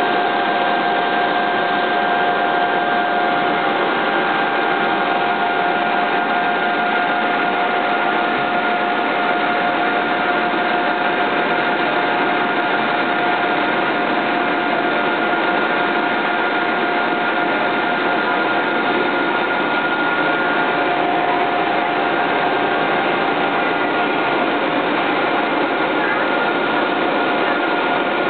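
Steady running noise of a train, with a steady whine held over it.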